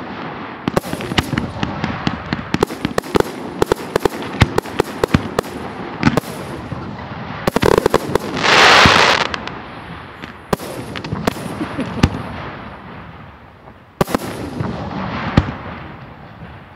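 Professional fireworks display: aerial shells and cakes going off in a dense run of bangs and crackles, then a loud hissing crackle about eight seconds in, followed by fewer, more widely spaced booms.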